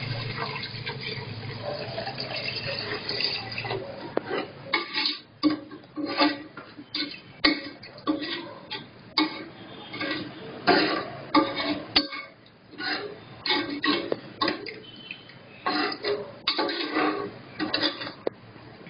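Water poured into an aluminium pressure cooker of vegetable biryani masala, splashing into the pot, with a steel ladle clinking against the pot. A steady pour for the first few seconds gives way to uneven splashes and clinks.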